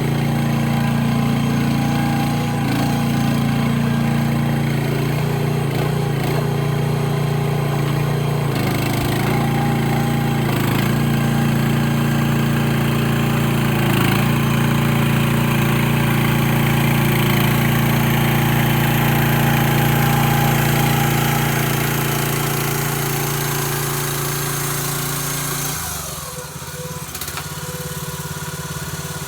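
Mini excavator's engine running steadily, its note shifting briefly every few seconds. About 26 seconds in it drops to a lower, quieter run.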